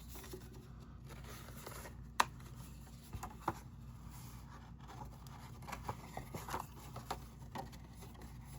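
Paper pieces of a pop-up card being handled: faint rustling and scattered small clicks and taps, with one sharp tap about two seconds in.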